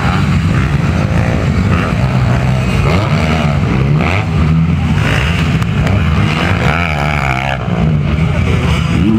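Motocross dirt bike engines running and revving, their pitch rising and falling.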